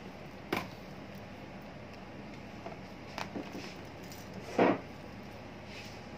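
Steady low hum of a powered-up CCTV DVR and its cooling fan, with a sharp click about half a second in, a few light ticks around three seconds, and one louder short knock about four and a half seconds in.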